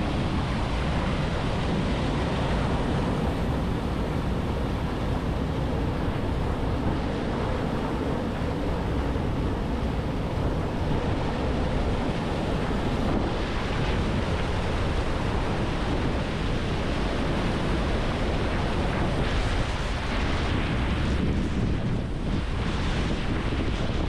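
Water of the Amaravathi River rushing over a check dam, a steady loud rush; the dam is full and overflowing after heavy rain.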